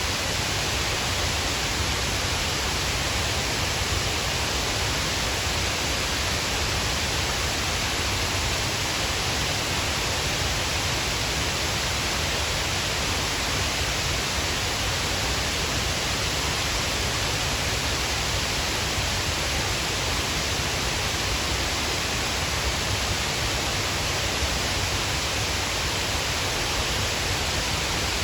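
Shiraito Falls, a wide curtain of many thin cascades, falling steadily: an even, unbroken rush of water.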